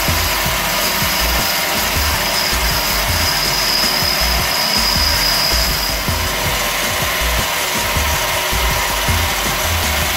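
Small benchtop metal lathe running, with a hand-held tool rubbing against the spinning metal workpiece. A thin high whistle sounds from about a second in until about halfway through, then stops.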